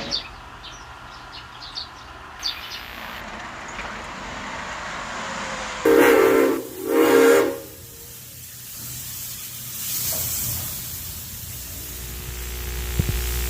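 Steam locomotive hissing steadily, with two short blasts of its steam whistle about six seconds in.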